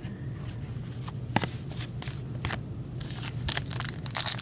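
Trading cards being handled with cotton gloves: scattered light clicks and rustles of card stock, thickening into crinkling near the end, over a steady low hum.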